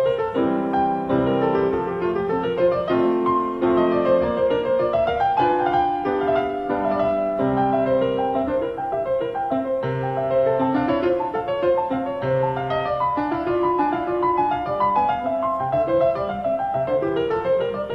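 Solo piano playing classical music, a continuous stream of notes over a recurring bass.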